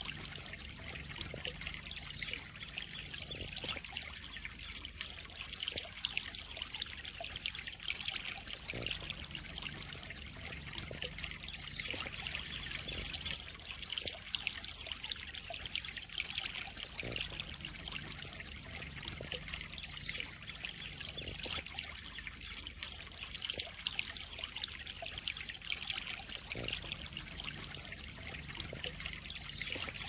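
Steady trickle of water pouring into a koi pond.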